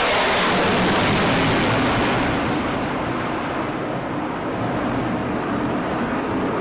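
Loud jet aircraft roar that swells in, is loudest over the first two seconds, then eases off a little and carries on steadily.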